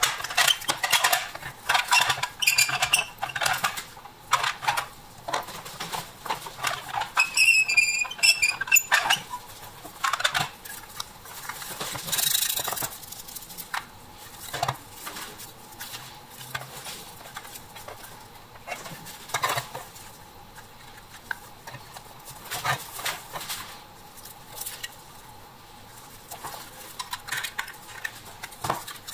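Small metal parts of a rusty die-cast toy dump truck being handled and pried apart with pliers: irregular clicks, taps and clinks, with a short scrape about twelve seconds in.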